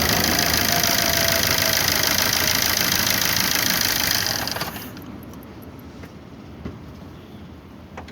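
Opel Corsa D 1.3 CDTI four-cylinder turbodiesel running, a loud steady clatter that the owner finds very noisy and is unsure is normal. A little past four seconds in, the sound drops away sharply, leaving a faint background with a couple of small clicks near the end.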